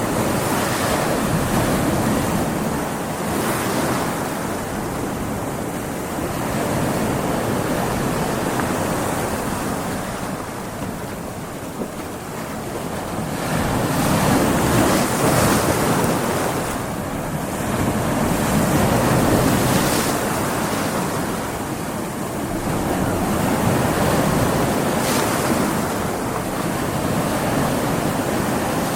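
Stormy sea: waves breaking and washing in continuously, swelling and easing every few seconds, with wind.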